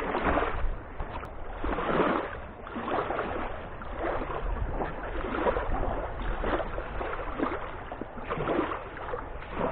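Small waves lapping and breaking at the water's edge in a steady rhythm of about one wash a second, over a steady low rumble.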